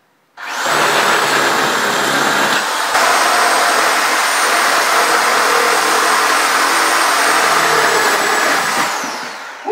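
Corded electric chainsaw running at full speed as it cuts through a wooden couch frame, with a steady high motor whine. It starts about half a second in, and near the end the trigger is let go and the motor winds down in pitch.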